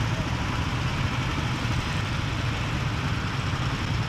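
Go-kart engine idling steadily in the pit lane, a low, even hum.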